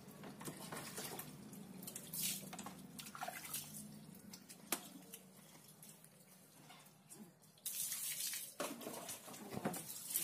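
Water splashing on a wet concrete floor as a Labrador puppy is scrubbed by hand, with one sharp tap a little before the middle. About three-quarters of the way in, water poured from a mug starts splashing steadily over the puppy and is the loudest part.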